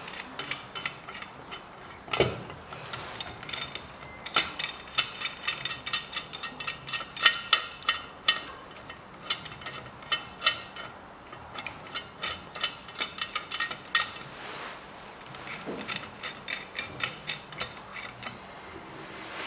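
Runs of rapid ratcheting clicks as the screw of a valve spring compressor is turned on a Toyota 3S-FE cylinder head, compressing a valve spring to free the valve keepers, with a couple of louder knocks from the tool on the head.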